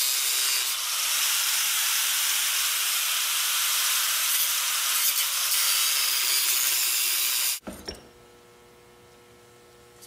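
Angle grinder cutting through the steel dust shield of a shock absorber clamped in a vise, a steady grinding hiss. It stops abruptly about three-quarters of the way in, leaving a faint hum.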